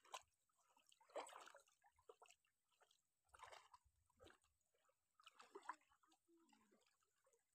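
Near silence, broken by three or four brief, faint sloshes of muddy pond water.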